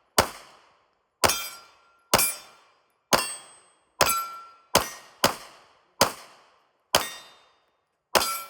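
A pistol fired in a slow string of about ten single shots, roughly one a second, each a sharp crack with a short ringing decay.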